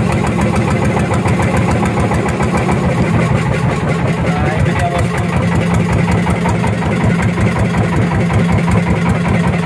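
Fishing boat's engine running at a steady speed, a fast, even pulsing of its firing strokes.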